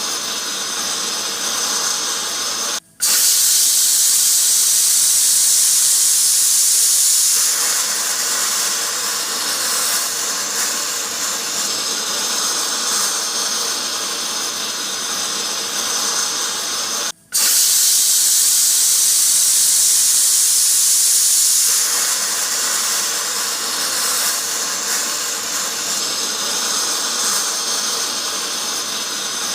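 Pressure cooker steam hissing steadily as it escapes under pressure. It breaks off for an instant twice, about 14 seconds apart, and each time comes back louder and brighter for several seconds before settling.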